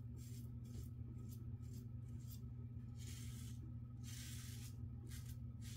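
Vintage Giraffe straight razor scraping through lathered beard stubble: several quick short strokes in the first second, then two longer strokes about three and four seconds in. A steady low hum runs underneath.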